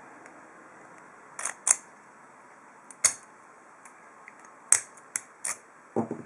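Chromed brass ASSA 2 padlock and its key being handled, giving about six sharp metallic clicks: a close pair about a second and a half in, then single clicks at uneven spacing.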